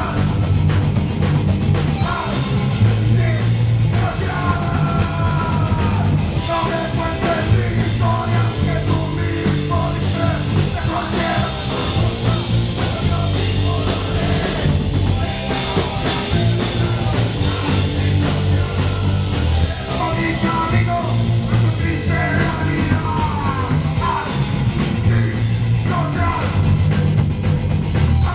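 Live punk rock band playing. A singer shouts the vocals over electric guitar, bass guitar and a drum kit.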